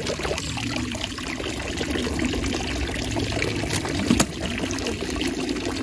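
Spring water running and pouring steadily, with a single sharp knock about four seconds in.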